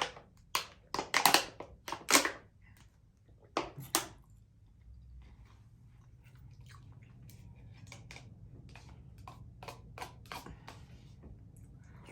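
Close-miked eating: a few loud crackling crunches in the first four seconds, then steady, softer chewing with small clicks.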